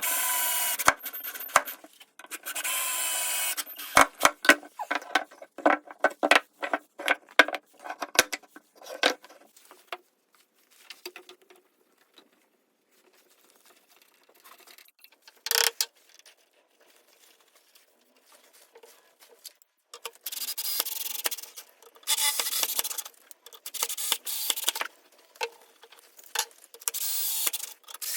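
Wood being rubbed down by hand with an abrasive tool: rasping strokes at the start and again through the last third, with a run of light clicks and taps in between and a quiet stretch in the middle broken by a single knock.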